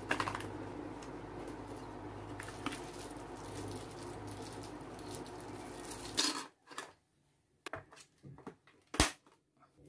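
Close handling sounds of a small cardboard accessory box and plastic packets holding a spare keycap and AAA batteries, with light rustles and taps over a steady room hum. After a sudden change to quieter sound, a few separate clicks follow, with one sharp click near the end as the keyboard's battery compartment is handled.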